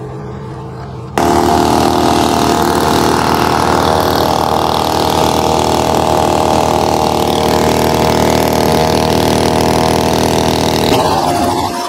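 Handheld leaf blower running at a steady high speed, blowing air into a smouldering pile of wet wood to fan the fire. It starts abruptly about a second in and cuts off near the end.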